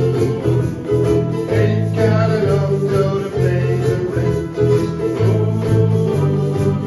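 A ukulele band playing a rockabilly tune: strummed ukuleles over a low bass line stepping between notes, with a shaker keeping time.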